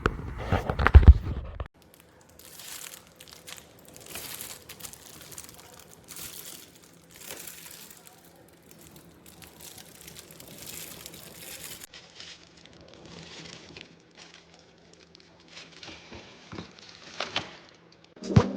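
Scattered rustling and crinkling handling noises, after a loud low burst that cuts off sharply in the first two seconds. A sharp loud click comes near the end.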